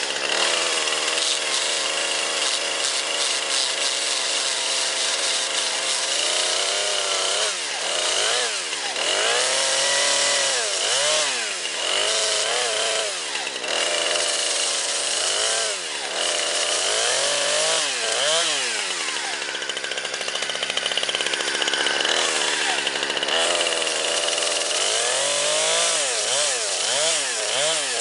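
Chainsaw running and cutting into a Samsung Galaxy S4 smartphone. The engine holds steady at first, then from about six seconds in it revs up and down over and over as the chain bites into the phone.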